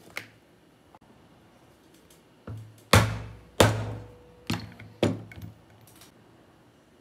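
A handful of sharp knocks on the leather workbench, a few seconds apart and unevenly spaced, each ringing briefly; the second and third are the loudest. They come as the corners of the wallet panel are cut off.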